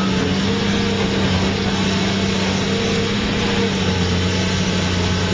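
Caterpillar 330C hydraulic excavator's diesel engine running steadily, an even low-pitched hum with no crashes or knocks.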